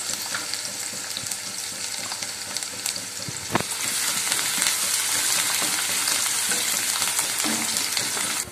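Chopped onions sizzling in hot oil in a kadai while a wooden spatula stirs them. There is one sharp knock a little before halfway, after which the sizzle grows louder, and it cuts off abruptly just before the end.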